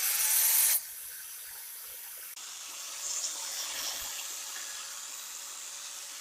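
Hitachi angle grinder switched on and running with no load: its whine rises as the motor spins up, then it runs steadily, louder for the first second. This is the test run after the armature bearing has been replaced.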